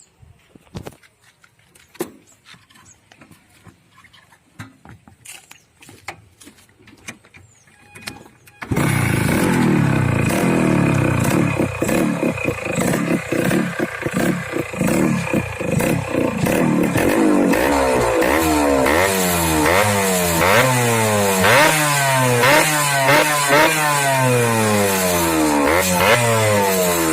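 Suzuki Shogun motorcycle engine: after several seconds of faint clicks and knocks it comes in loud and sudden, runs unevenly, then from about halfway on is revved up and down over and over, roughly once a second.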